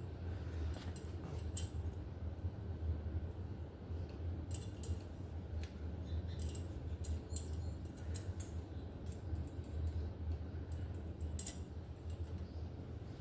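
Irregular light clicks and ticks of small metal parts being handled as a new V-brake cable is fitted to a BMX bike's brakes, over a steady low hum.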